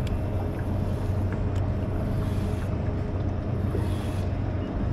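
Boat motor running at a steady low hum.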